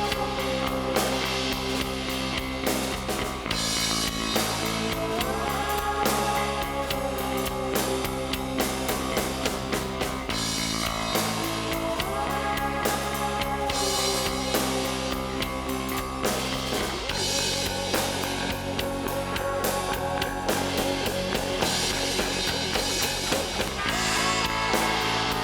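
Rock background music with electric guitar and a steady drum-kit beat, changing chords every few seconds.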